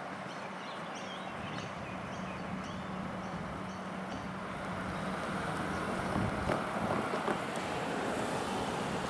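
A vehicle running with a steady low hum, growing louder about halfway in as it approaches. Birds chirp in the first few seconds.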